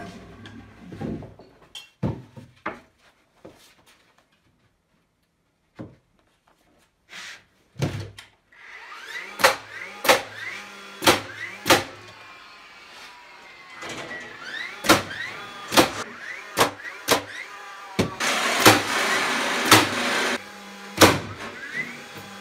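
Framing nailer driving nails into 2x6 wall studs and plates: about a dozen sharp shots, coming in quick pairs, from about seven seconds in. A couple of wooden thunks come first as boards are set on the frame, and a motor whir runs under the shots, loudest near the end.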